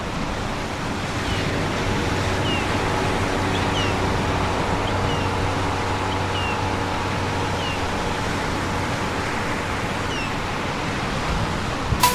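Sea surf washing steadily onto a shore, a continuous rush of waves, with short falling bird calls repeating every second or so over it.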